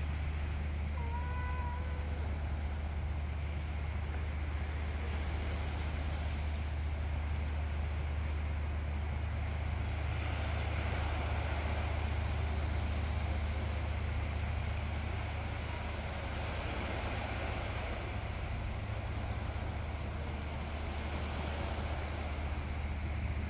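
Steady low hum of a distant city and harbour at night, with an even hiss over it that swells somewhat in the middle. A short high-pitched call sounds about a second in.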